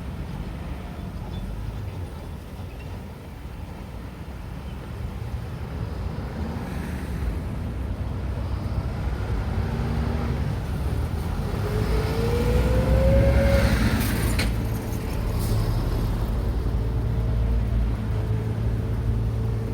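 Road traffic at a junction, with vehicles passing and a steady low rumble. About two-thirds of the way through, one vehicle pulls away with a rising whine, the loudest moment, followed by a short hiss.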